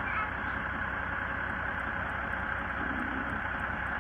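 Farm tractor's diesel engine running steadily as it pulls away down a gravel lane: a low throb under an even hiss.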